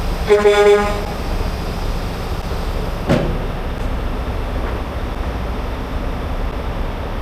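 Tractor-trailer engines idling with a steady low rumble. There is a short horn toot near the start and a single sharp knock about three seconds in.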